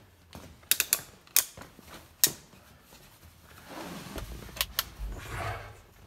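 Handling noises as a light is picked up and brought under a truck's dash: several sharp clicks and knocks, two of them close together about a second in, then rustling and shuffling about four seconds in.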